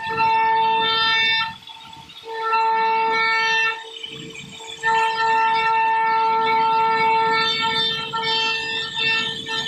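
CNC router spindle whining at a steady high pitch as its bit carves a relief pattern into wood. The whine drops away briefly twice, about a second and a half in and about four seconds in, then comes back.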